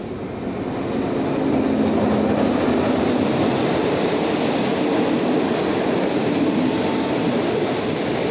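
A diesel-hauled passenger train rolls in past the platform, with the locomotive and carriages running close by. The running noise swells over the first second or two as the train comes alongside, then holds steady as the carriages pass.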